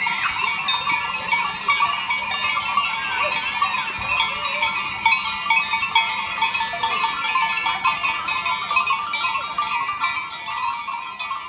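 Many bells on a herd of Valais blackneck goats ringing and clanking together in a steady jangle as the goats walk, with an occasional bleat.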